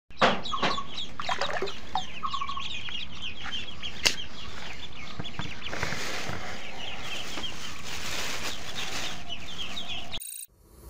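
A group of ducklings peeping continuously, many short high chirps overlapping in quick succession, with one sharp click about four seconds in. The peeping cuts off shortly before the end.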